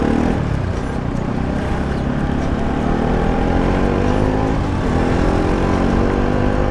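Bajaj Pulsar NS 200's single-cylinder engine running through its modified stock exhaust, with a hollow note and a little more bass. Its pitch falls in the first second, then climbs, dips about two-thirds through and climbs again, as when accelerating through the gears.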